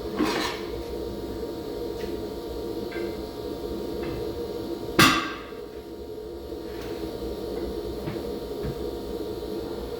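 A sharp knock, hammer-like, about five seconds in, with a softer knock right at the start, over a steady low hum.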